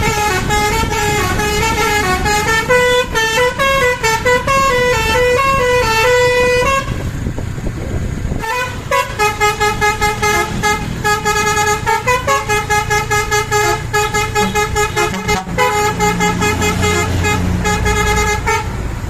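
Bus's basuri 'telolet' musical horn playing a quick tune of stepping notes, breaking off about seven seconds in, then sounding again as a long run of short repeated notes. A low engine rumble runs underneath in the second half.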